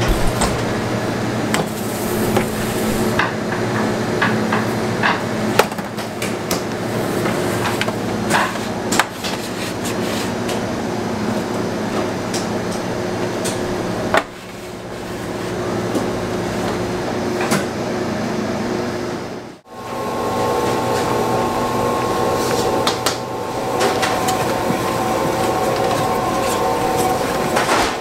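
Bakery workroom sound: machinery humming steadily under scattered knocks and clatter of tools and trays being handled. About two-thirds of the way through, the sound cuts out for an instant and the hum returns at a higher pitch.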